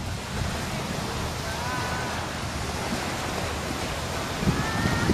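Sea waves washing onto a sandy beach: a steady, even hiss of surf.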